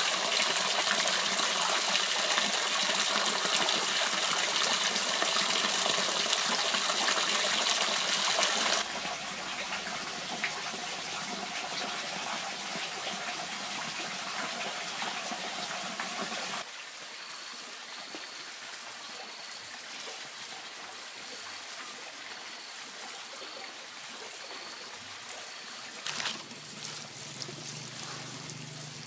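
Running water with no pitch of its own. It is loudest for about the first nine seconds, then drops abruptly to a quieter run of water, and drops again about halfway through.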